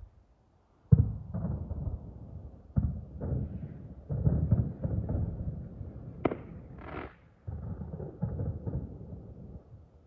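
Fireworks going off: a series of booming aerial shell bursts, the first and loudest about a second in, each trailing into a rolling low rumble, with a sharper crack about six seconds in.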